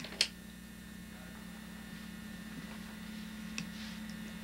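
Steady electrical hum, with one sharp click about a quarter second in and a fainter tick later on.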